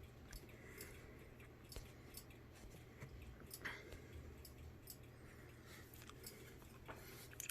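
Near silence: faint scattered clicks and small handling noises from a Nokia mobile phone being held and worked, over a low steady hum.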